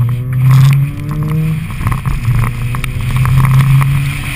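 Mazda RX-8's twin-rotor rotary engine accelerating hard, its pitch rising, dropping at a gear change about a second and a half in, then rising again, with wind noise over it.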